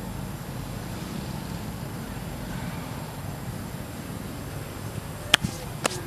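Steady low outdoor rumble with two sharp clicks about half a second apart near the end.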